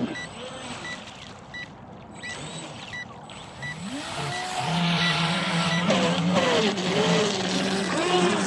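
Electric RC speedboat motor spinning up about four seconds in with a rising whine, then running at speed with a whine that wavers in pitch over the hiss of spray. Before that, a run of short, evenly spaced high beeps about twice a second.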